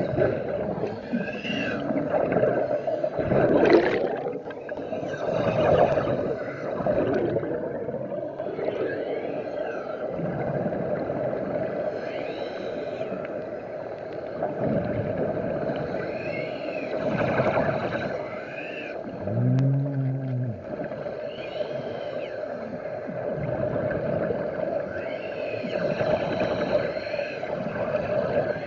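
Underwater sound picked up by a submerged camera: swells of rushing air bubbles from a diver over a steady drone.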